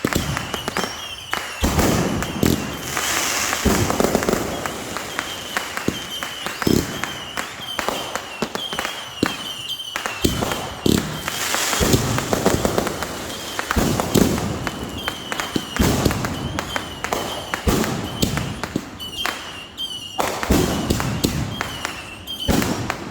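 Fireworks going off: a quick, uneven run of sharp bangs and pops, with two spells of dense crackling.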